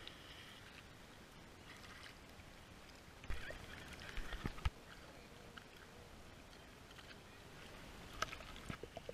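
Sea water lapping and splashing at the surface, with a few sharp knocks about three to five seconds in and again near the end.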